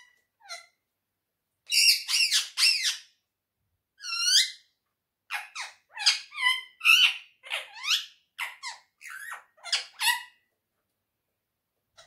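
Indian ringneck parakeet vocalizing: a quick run of short, high-pitched calls that slide up and down in pitch, from about two seconds in until about ten seconds in, with a short gap around five seconds.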